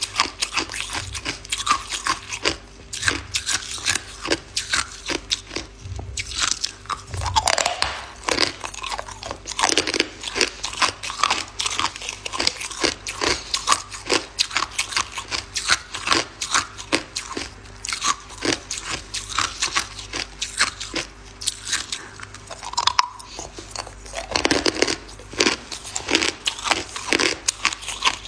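Hard ice being bitten and chewed: a dense, continuous run of sharp crunching cracks, with louder flurries of bites about a quarter of the way in and again near the end.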